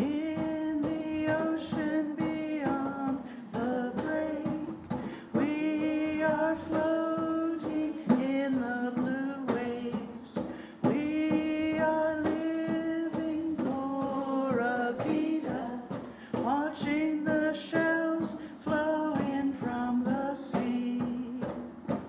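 Voices singing long held notes in a repeating melody over a steady beat of short percussive strikes.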